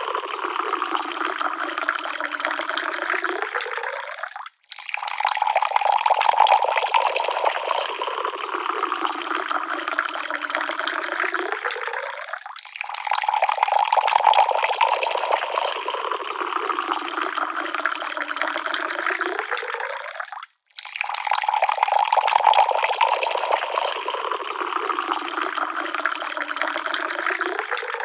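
Running or pouring water, a steady rushing splash. The same stretch of about eight seconds repeats several times, with a brief break between repeats.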